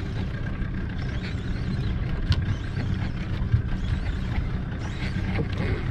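Steady low rumble on a small outrigger fishing boat at sea, with a couple of sharp clicks a little after two seconds and about three and a half seconds in.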